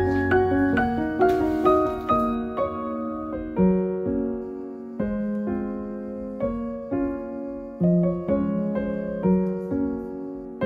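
Background piano music: a slow, gentle tune of single notes and chords, each struck and left to fade.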